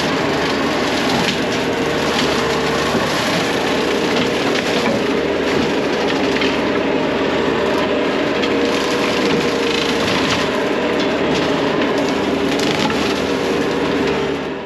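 Skid steer's severe-duty brush cutter shredding brush and small trees: wood splintering and cracking without pause over the steady running of the machine, cut off abruptly at the end.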